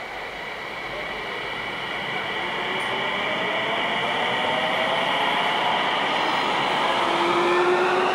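Tsukuba Express TX-2000 series electric train pulling away and accelerating. The VVVF inverter traction motors whine in several tones that rise in pitch over the running noise, and the sound grows steadily louder as the cars come past.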